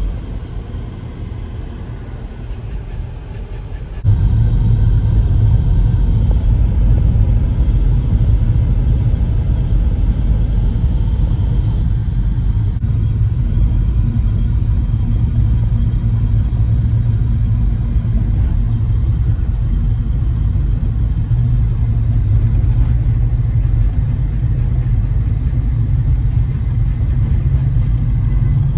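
Steady low rumble of a moving car's road and engine noise, heard from inside the cabin. It jumps louder about four seconds in and then holds steady.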